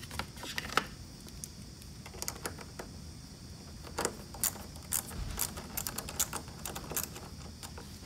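Small socket ratchet clicking in short irregular runs as the nut on a car battery's positive terminal clamp is loosened. The clicks are sparse at first and come thickest from about halfway through to near the end.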